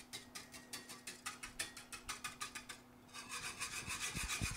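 Metal wire whisk scraping around the bottom of a cast iron skillet, stirring and breaking up eggs as they scramble. Quick, even strokes come about five a second, pause briefly near the three-second mark, then turn to denser scraping.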